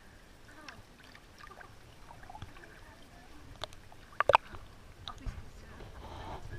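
Swimming-pool water lapping and gurgling around a camera held half under the surface, with scattered small clicks and a brief sharp clatter a little over four seconds in.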